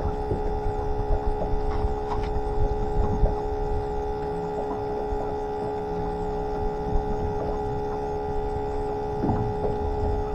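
Steady high whine of the bait tank's pump under the camera, a constant hum over a low rumble.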